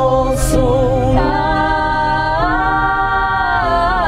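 Female vocal group singing a cappella in close harmony, several voices holding long, steady chords and sliding together into each new chord, heard inside a car.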